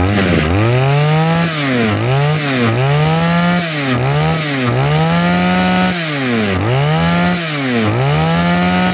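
Komatsu Zenoah BC2215EZ 22 cc two-stroke brush cutter engine being revved by hand, about seven times: each time the pitch climbs quickly, holds, then drops back toward idle. The engine picks up cleanly each time, an engine the seller calls extremely good.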